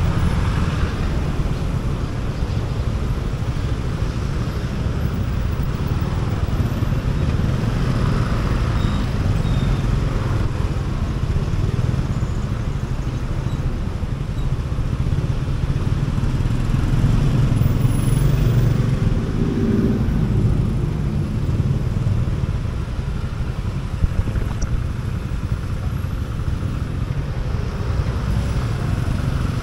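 Motorcycle riding through city traffic: a steady low rumble of the bike's engine and road noise, with other vehicles around it.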